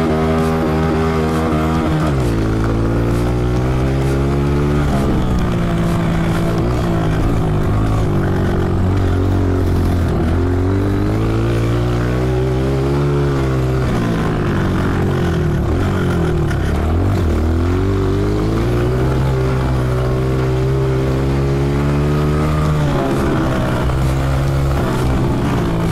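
Honda CRF125F dirt bike's single-cylinder four-stroke engine heard from on board while being ridden, revving up and dropping off several times as the rider works the throttle and gears.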